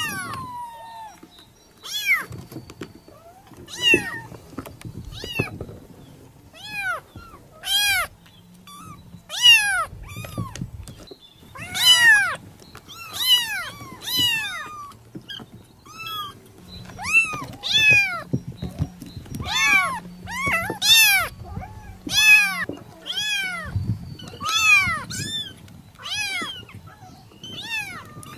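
Kitten meowing over and over: about twenty short, high calls roughly a second apart, each rising and then falling in pitch.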